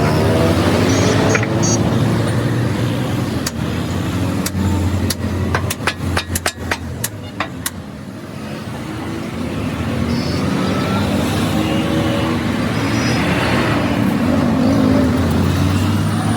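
Motor vehicle engines running steadily, with a run of sharp knocks that come quicker together between about four and eight seconds in.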